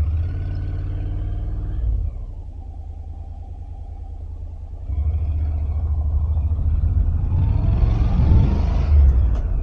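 Honda NC750X motorcycle's parallel-twin engine under way: a steady low rumble that eases off about two seconds in, then comes back louder around five seconds in and rises in pitch as the bike accelerates.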